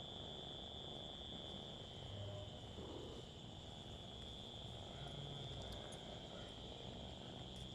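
Insects trilling steadily in one high, unbroken note, over a faint low rumble.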